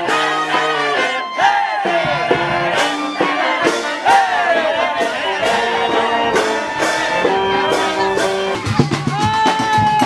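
Music, with instruments playing held notes under a melody line that glides up and down, running without a break.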